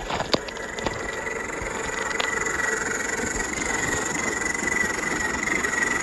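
Electric motor and gearbox of a 1/10-scale RC crawler running with a steady whine, with a few sharp clicks in the first couple of seconds.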